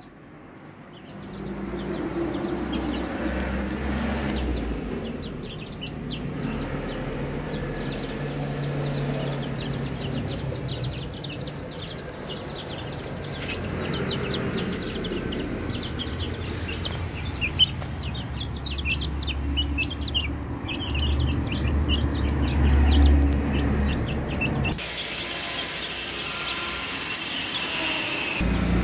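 Twenty-day-old chicks peeping, many short high cheeps in quick succession, over a low rumble. A single sharp click comes a little past the middle.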